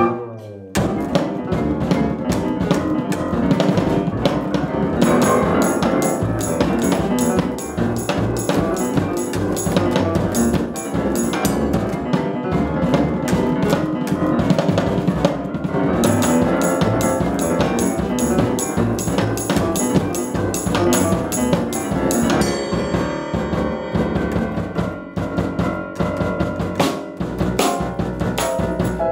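Jazz piano trio playing: grand piano, double bass and drum kit together, with busy drumming. The bass and drums come in sharply under the piano just under a second in.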